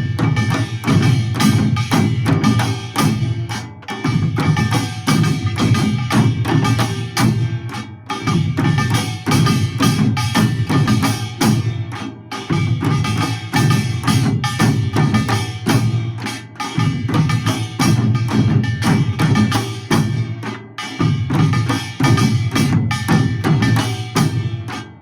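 Korean pungmul percussion ensemble played seated, samul nori style: fast, dense drumming on hourglass janggu and barrel buk under clanging, ringing brass gongs. The playing runs in phrases with a brief drop about every four seconds.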